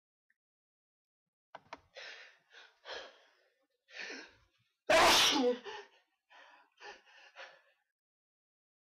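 A person sneezing: a run of short gasping breaths builds up over about three seconds, then one loud sneeze about five seconds in, followed by several short breaths.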